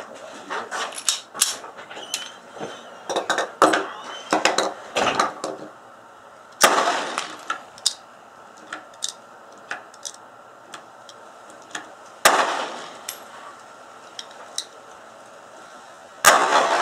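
Pistol shots: a quick string of shots over the first six seconds, then single, louder shots about 7, 12 and 16 seconds in.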